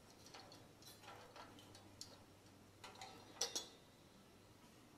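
Faint, scattered light clicks and taps of small steel parts being handled as a whirligig's blade head is fitted and turned on its shaft, with two sharper clicks about three and a half seconds in.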